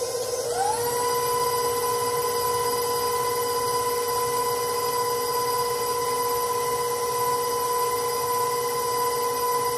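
Electric stand mixer running with its paddle beating peanut butter cookie dough: a steady motor whine that rises in pitch about half a second in as the speed goes up, then holds level.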